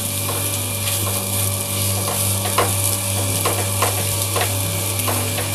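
Rohu fish steaks shallow-frying in mustard oil, sizzling steadily, with about a dozen short scrapes and taps of a silicone spatula against the pan as the pieces are turned. A steady low hum runs underneath.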